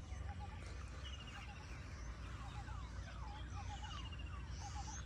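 Faint birdsong from several birds: short rapid trills and quick falling whistle notes repeating throughout, over a steady low rumble.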